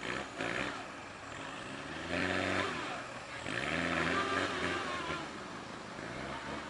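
Off-road 4x4 engine revving hard in repeated surges, its pitch climbing at each push: about two seconds in, again about a second later, and once more near the end.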